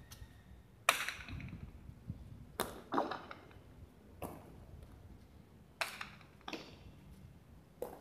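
Hard jai alai ball (pelota) cracking against the fronton's walls and floor during a rally, about seven sharp impacts a second or so apart, each with a short echo; the loudest comes about a second in.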